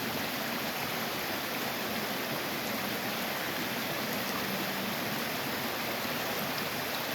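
Creek water running steadily over rocks, an even rushing noise with no breaks.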